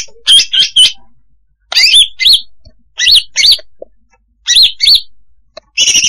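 Female green leafbird (cucak hijau) calling, the lure call used to draw in leafbirds. It gives sharp, arching chirps in quick clusters of two to four, a new cluster about every second and a half, with a harsher buzzy burst near the end.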